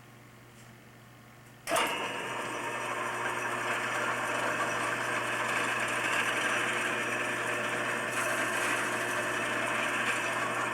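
Electric drill starting about two seconds in and running steadily, drilling a hole with a spur bit down into a split Sunfish rudder blade past the fracture.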